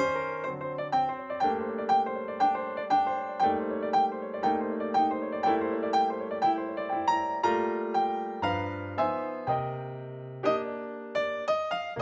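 Background music: a light keyboard piece with struck notes in a steady pulse, about two a second, over held chords.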